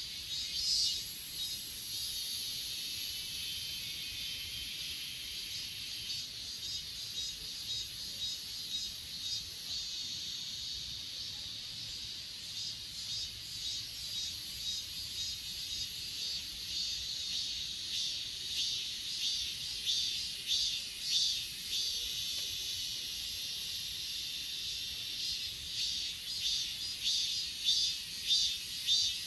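Chorus of grass insects, crickets among them, singing in a dense, steady high-pitched shimmer. Partway through, a quick rhythmic pulsing chirp joins in and grows louder toward the end.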